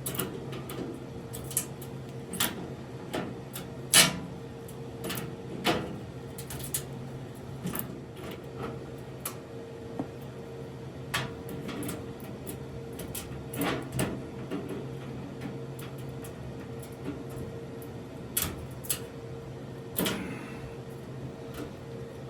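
Irregular small clicks and knocks of hand-fitting work, a 3D-printed plastic knob and lock parts being threaded and handled on a laser engraver's door, over a steady low hum.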